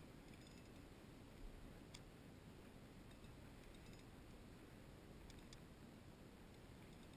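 Near silence, with a few faint, sharp clicks and some light ticking.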